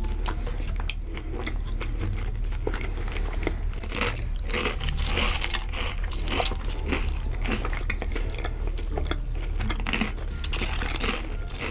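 Close-miked mukbang eating: a mouth biting and chewing crunchy food, with dense irregular crunches and wet mouth sounds over a steady low hum.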